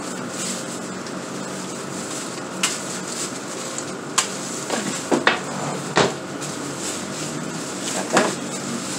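Kitchenware being handled: a few scattered knocks and clinks over a steady background hum.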